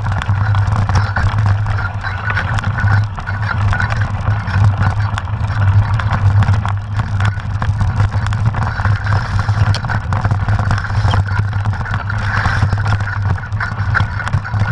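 Steady rumbling riding noise from a mountain bike on a muddy dirt trail: tyres rolling over the dirt, the bike rattling, and wind on the microphone, with small irregular knocks throughout.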